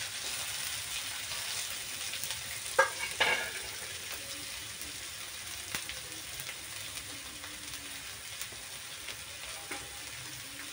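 Chopped onions and green chillies sizzling in hot oil in a steel karai, being fried until brown. Two short, sharp sounds stand out about three seconds in.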